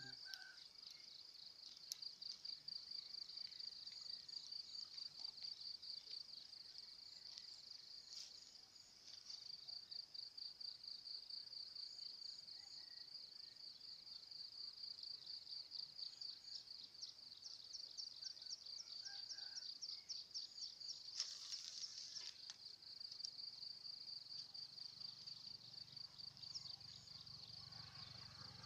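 Insects chirping in a faint, steady, high pulsing trill, with a short rustle about two-thirds of the way through.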